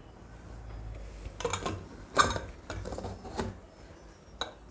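A handful of metal clinks and knocks as a stainless-steel pressure cooker's lid is fitted onto the pot of boiling rice, the loudest about two seconds in.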